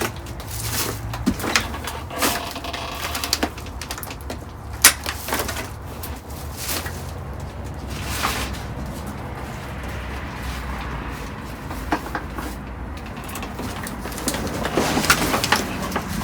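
Scattered knocks, clatters and rustles of items being shifted around while rummaging through a dumpster, over a steady low hum.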